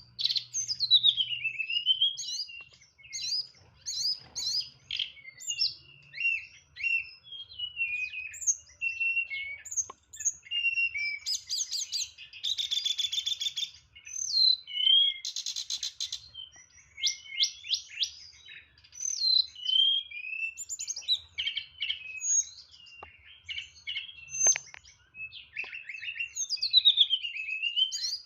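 A tledekan songbird singing a long, varied song of quick whistled and chirped phrases, with buzzy trills about twelve and fifteen seconds in. It is running through its mimicked 'isian' phrases in the clipped 'nyeklek' style.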